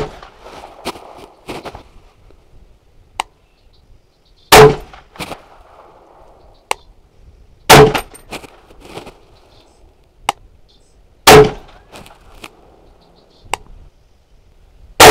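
Daniel Defense DD5V2 semi-automatic .308 rifle firing a string of single aimed shots, five in all: one at the very start, then about every three to four seconds, the last right at the end. Each shot has a short ringing echo, and faint clicks fall between the shots.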